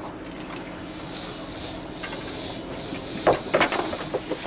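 Steady low drone of the boat's engine, with a quick run of sharp knocks and clatters on the deck about three seconds in.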